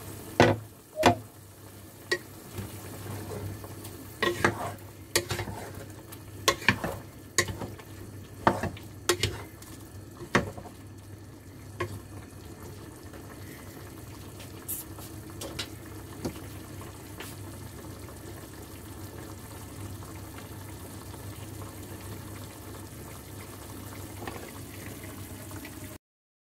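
Wooden spatula stirring chicken, cauliflower and bell pepper in a stone-coated pot on the stove, knocking against the pot over a steady sizzle. Two loud clacks come about half a second and a second in. The knocks are frequent for the first twelve seconds or so, then thin out to a few, leaving mainly the sizzle.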